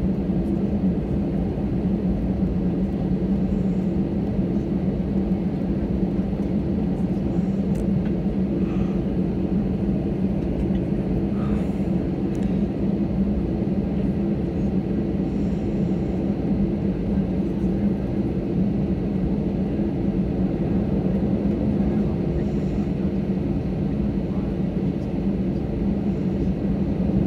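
Cabin noise of an Airbus A320-214 taxiing on its CFM56 engines at idle: a steady low hum with a couple of steady tones underneath, not rising at all.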